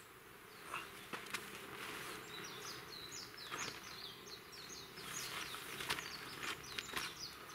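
A small bird twittering, a rapid run of short high chirps starting about two seconds in, over faint rustling of tarp fabric being handled and light steps on gravel.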